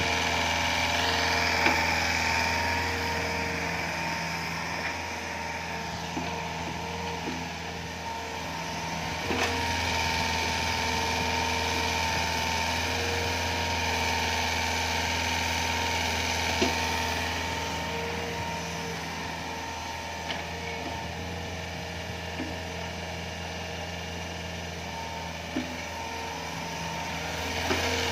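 Hitachi Zaxis 48U mini excavator working, its Yanmar 4TNV88 four-cylinder diesel running steadily under hydraulic load as the arm and bucket dig. A higher whine swells and eases in long stretches as the load changes, with a few sharp knocks now and then.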